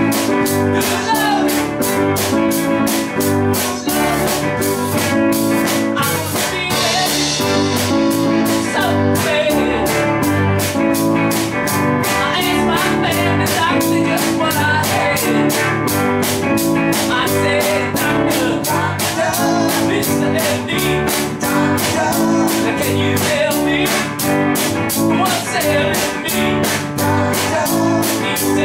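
Live band playing a bluesy rock song: a drum kit keeping a steady beat under electric guitar and a repeating bass line, with a man singing into a microphone.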